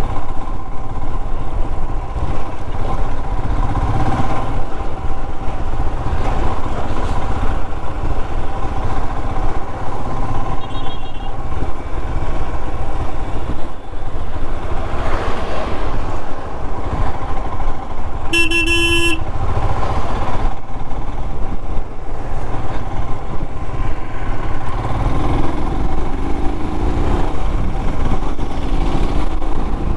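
Royal Enfield Himalayan's 411 cc single-cylinder engine running on the move under a steady low rumble of wind. About eighteen seconds in, a vehicle horn honks once, for under a second, with a fainter horn-like beep earlier.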